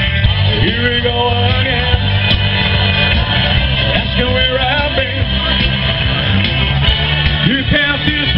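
Rock and roll music from a live band, with singing, playing steadily.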